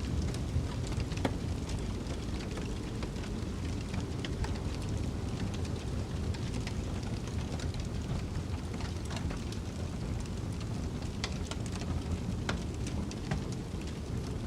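Wood fire crackling in a fireplace, with scattered sharp pops and snaps, over a steady low rumble of snowstorm wind.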